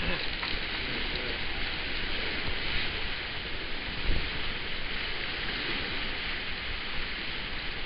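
Steady rushing noise of wind and water aboard a sailboat running under spinnaker in about 15 knots of breeze, with the wind buffeting the microphone. A single thump about four seconds in.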